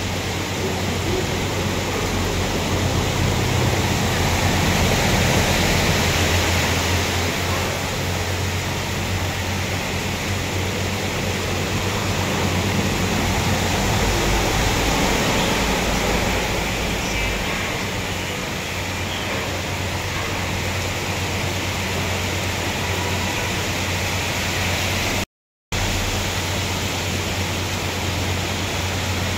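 Heavy rain pouring and floodwater rushing on a flooded road, a steady hiss with a low rumble underneath as vehicles wade through the water. The sound cuts out for a moment about four seconds before the end.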